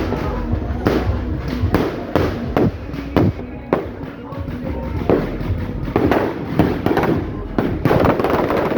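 Fireworks going off in quick, irregular succession: many sharp bangs, a few each second.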